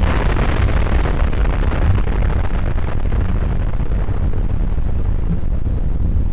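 Hovercraft engine and propeller fan running, a loud steady rumble with wind buffeting the microphone; a hissing rush of air and spray fades away over the first couple of seconds.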